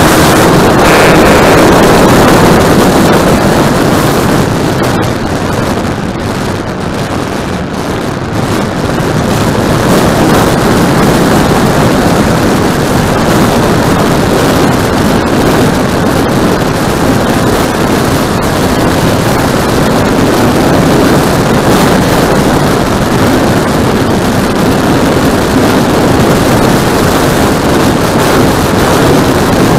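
A radio-controlled model airplane's motor and propeller running in flight, heard from on board with heavy wind noise on the microphone. It drops in level for a few seconds near the start, then comes back up and holds steady.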